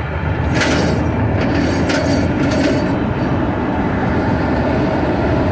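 Road and tyre noise heard inside a moving car's cabin at highway speed: a steady rumble, with a few brief ticks in the first few seconds.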